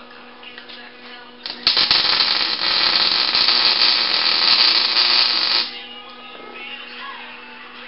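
Wire-feed (MIG) welder arc crackling steadily for about four seconds as a bead is laid on steel tube, starting and stopping abruptly, over background music.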